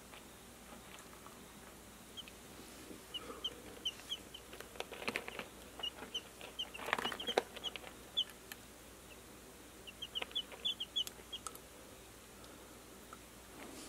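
Young chicks peeping: short, high cheeps in quick runs through most of the clip. There are scattered clicks and rustles from the wood-pellet bedding, loudest about seven seconds in.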